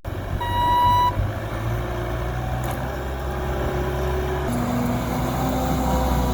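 A motor vehicle runs with a steady low rumble, its pitch shifting slightly about four and a half seconds in. A short beep sounds about half a second in.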